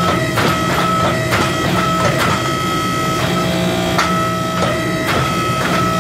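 Repeated hammer blows forging a red-hot steel billet, about two to three strikes a second, over a steady machine whine.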